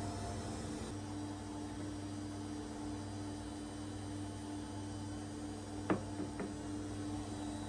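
Steady low electrical hum over faint hiss, with two light clicks about six seconds in.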